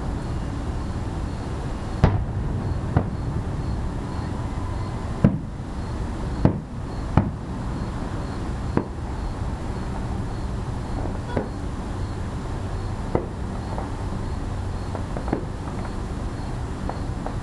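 Distant aerial fireworks bursting: about ten sharp bangs at irregular intervals over steady background noise.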